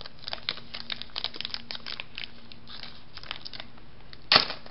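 Yu-Gi-Oh trading cards handled by hand, sorted through and laid down on a table, making a run of short rustles and snaps. There is a louder rustle about four seconds in.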